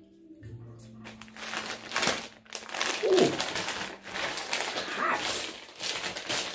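Crinkling and rustling of a Flamin' Hot Cheetos snack bag as it is handled and worked open in both hands, in irregular bursts.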